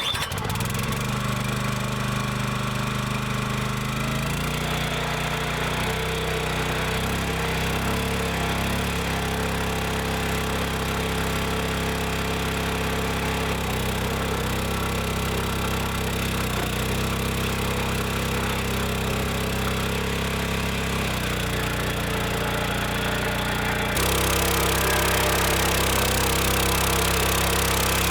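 Small gas engine of a 25-ton hydraulic log splitter running steadily, its note shifting a few times as the pump takes load while the ram drives through a knotty oak round. Near the end the sound turns louder and brighter.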